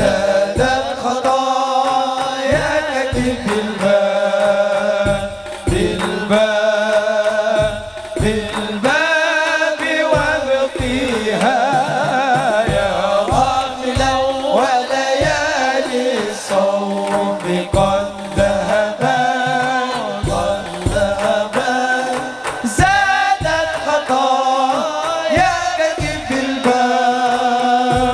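Sholawat devotional singing: an ornamented male lead voice sung into a microphone, with other voices, over a steady beat of hand drums, all through a PA.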